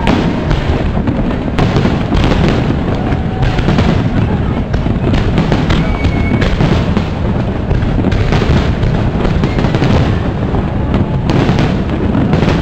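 Aerial fireworks shells bursting in quick, overlapping succession: a continuous barrage of bangs and crackling with no let-up.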